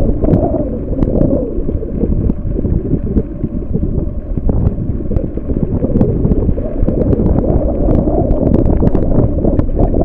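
Wind buffeting the microphone: a loud, unsteady low rumble, with scattered faint clicks and knocks through it.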